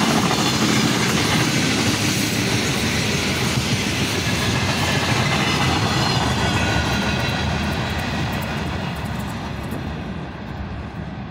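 A freight train's wagons rolling past close by, their steel wheels running on the rails. The noise fades over the last few seconds as the end of the train draws away.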